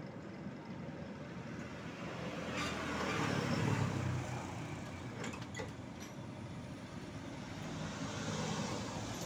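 Background traffic: a vehicle passing, swelling to its loudest about three to four seconds in and easing off, with another smaller swell near the end. A few short, sharp clicks stand out over it.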